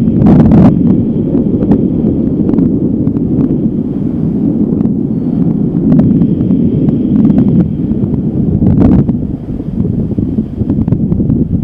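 Strong wind buffeting the microphone as a loud, continuous low rumble, with brief louder gusts just after the start and again about nine seconds in.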